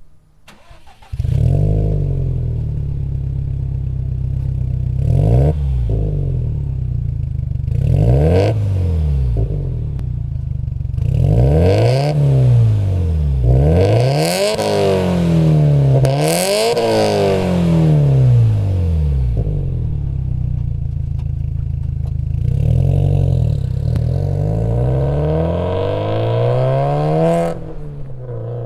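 Subaru WRX STI (VAB) turbocharged flat-four exhaust through an HKS aftermarket muffler, idling and free-revving. It is blipped up and back down about six times, then held up longer near the end before dropping back to idle.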